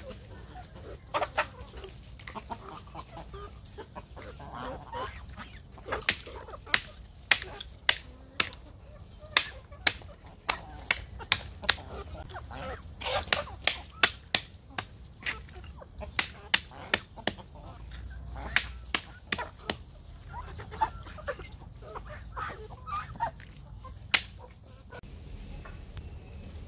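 Sharp knocks of a metal ladle striking snail shells on a wooden log to break them, coming in runs of about one or two a second, with chickens, ducks and geese clucking and calling.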